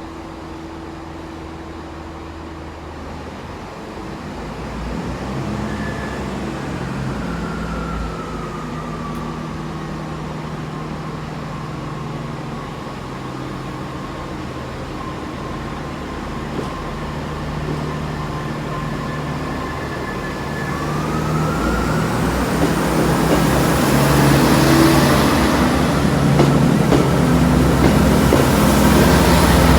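GWR Class 802 bi-mode train pulling out on its underfloor diesel engines, their steady note joined by a traction whine that glides up and down. It grows louder from about twenty seconds in as the train draws past, with a rising high whine and rushing noise near the end.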